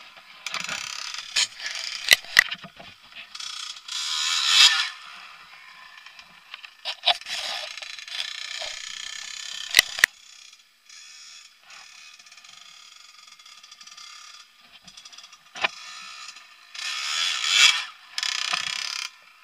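Dirt bike engine revving up and dropping back in repeated surges, heard thin and rasping with little low end. A few sharp clicks stand out, two about two seconds in and two more about ten seconds in.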